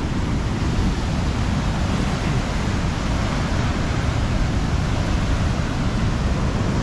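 Rough sea surging against a rocky shore, with wind on the microphone: a steady, loud rushing noise with a choppy low rumble.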